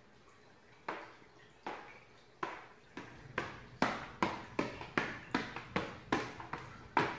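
Sneakers stepping and stamping on an LED light strip laid on a board: sharp footfalls, at first about one every second, then quickening to two or three a second from about three seconds in.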